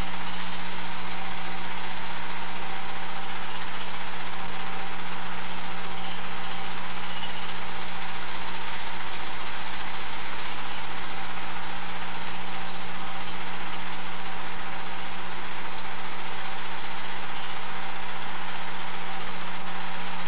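Super 8 film projector running: a steady mechanical whir with a constant low hum and hiss that does not change.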